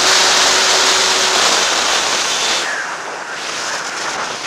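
Wind rushing over the microphone of a motorcycle rider's helmet camera at road speed, a loud steady hiss that eases a little about two and a half seconds in.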